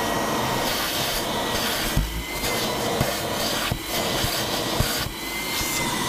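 Vacuum cleaner running with a steady whine, its hose nozzle sucking up metal drill filings, with a few sharp ticks along the way.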